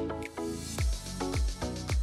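Background music: melodic notes over a steady beat, with deep kick-drum hits about twice a second that come in just under a second in.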